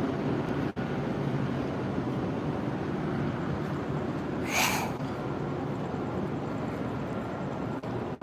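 Steady low rumble of a vehicle running, with a brief hiss about four and a half seconds in.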